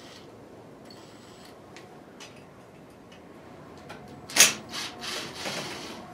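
Hands working on a kerosene heater's parts while taking off the wind protector and its small screws: faint light clicks, then a sharp click about four seconds in, followed by a couple of seconds of rubbing and scraping.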